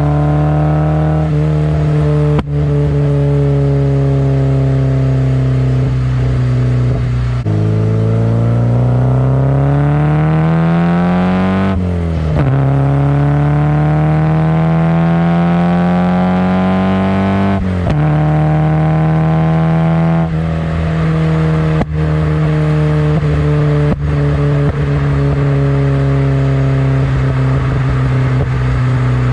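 Nissan 240SX's 2.4-litre KA24DE inline-four with 4-2-1 headers, test pipe and HKS Hi-Power exhaust, running steadily and then pulling through two gears: the exhaust note rises for several seconds, drops suddenly at an upshift, rises again and drops at a second upshift before settling back to a steady cruise.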